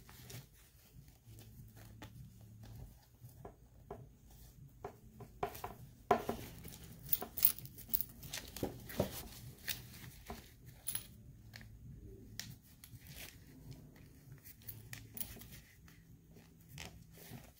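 Cloth of a 12-inch action figure's fatigue shirt and undershirt rustling and rubbing as the figure is being dressed, with irregular light clicks and knocks from handling, a few sharper ones about six and nine seconds in.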